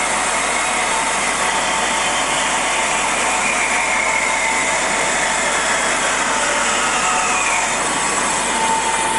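Cosen R-250NC automatic horizontal bandsaw running through its auto cycle on a 50 mm cut: a steady mechanical running noise with a faint high tone that slowly falls in pitch partway through.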